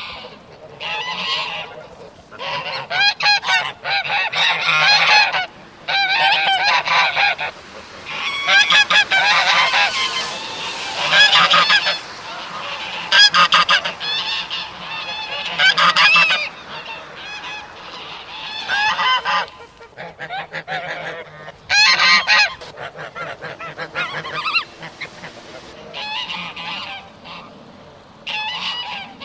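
Geese honking in repeated bouts, several birds calling over one another, with short pauses between bouts.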